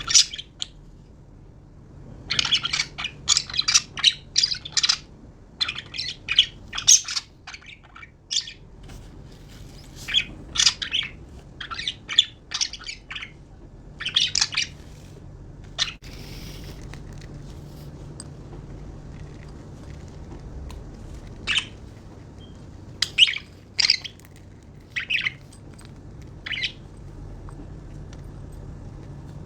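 Budgerigars chirping: quick runs of short, high chirps in clusters, thick in the first half and more scattered later, over a low steady hum.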